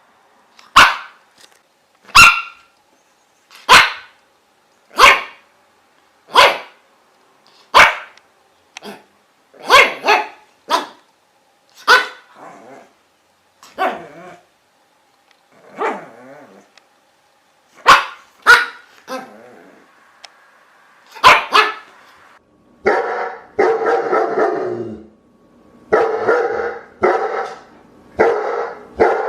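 Dog barking: single sharp barks about every second and a half, then barks at an irregular pace. Near the end, longer, harsher barks come in quick runs, lower in pitch.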